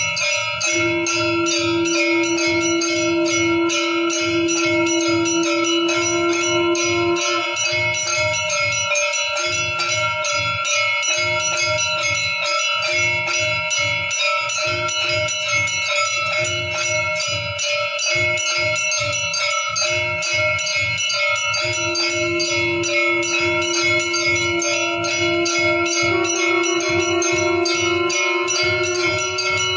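Temple bells ringing in a rapid, continuous clangour during an aarti, over steady drum beats. A held low tone sounds through the first few seconds, breaks up and returns in short stretches, then holds again near the end.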